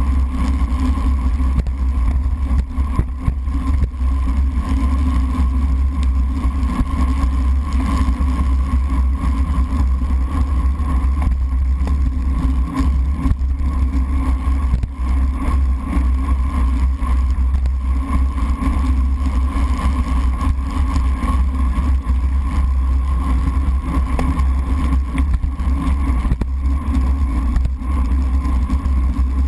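Steady, loud low rumble of wind and road vibration, muffled by the sealed waterproof housing of a GoPro camera mounted on a road bike riding at race speed on wet pavement.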